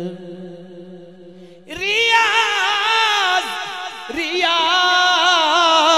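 A male naat reciter singing. A long wavering note fades away, then, a little under two seconds in, he comes in loudly on a new phrase with a wavering, ornamented melody.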